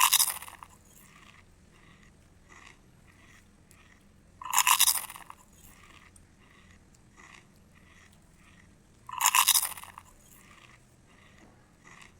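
Close-miked eating of pizza and chilli potato: three loud crunchy bites about four to five seconds apart, with soft chewing sounds between them.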